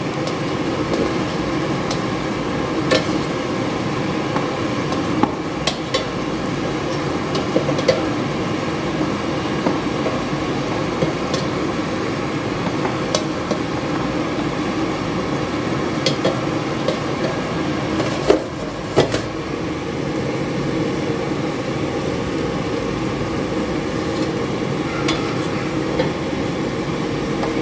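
A black plastic spatula taps and scrapes on the metal basket of an air fryer as chicken kababs are turned over, giving scattered sharp clicks and knocks with a pair of louder ones near the end. Under them runs a steady whirring hum.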